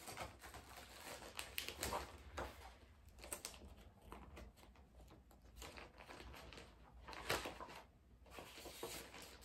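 Faint rustling and crinkling of paper as the pages of a cross-stitch pattern are handled and turned, in short scattered bits.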